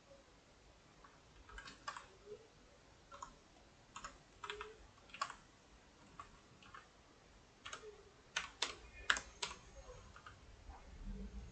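Computer keyboard keys and mouse buttons clicking irregularly in small clusters while shortcuts are worked. There is a denser run of sharper clicks about eight to nine and a half seconds in.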